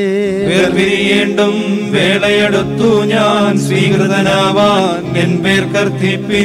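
Voices chanting a Malayalam Orthodox funeral hymn, drawn-out held notes sung with a wavering vibrato.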